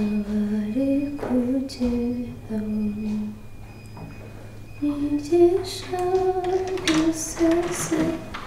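A woman's voice singing a slow melody in long held notes. The notes pause about halfway through, then come back in a higher phrase.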